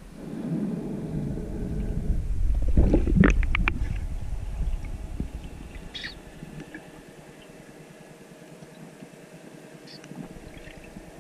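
Underwater water noise picked up by a diving camera: a low rumbling gurgle that swells over the first few seconds, with a quick cluster of clicks about three seconds in. It then settles to a quieter steady hiss.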